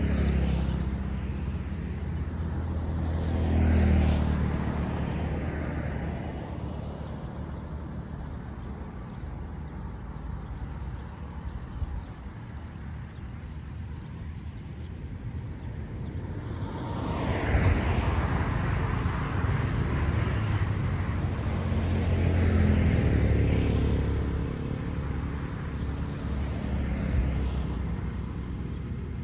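Road traffic: vehicles pass one after another, each swelling up and fading away over a few seconds over a steady low rumble, with the loudest passes about four seconds in and again from about eighteen to twenty-four seconds in.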